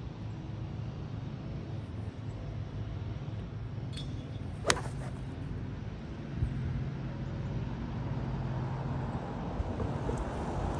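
An iron striking a golf ball off an artificial turf mat: one sharp click a little under five seconds in. A steady low hum of road traffic runs underneath and grows louder about six seconds in.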